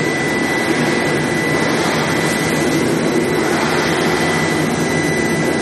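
Induction heat treatment equipment running: steady, loud machine noise with a thin, high, steady whine over it.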